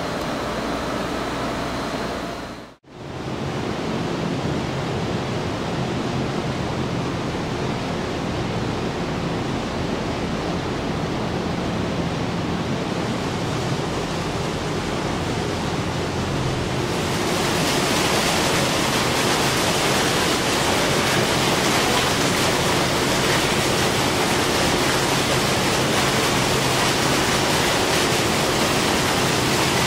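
Steady rushing noise with a low machinery hum underneath. It cuts out briefly about three seconds in and grows louder and hissier about 17 seconds in, fitting a stream of grain mash pouring and splashing into a large stainless-steel bourbon fermenter.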